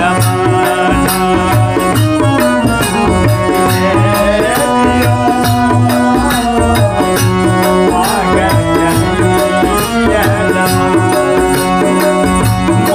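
Instrumental passage of a Maithili nirgun bhajan: harmonium carrying the melody in held reedy notes over a steady, repeating dholak rhythm.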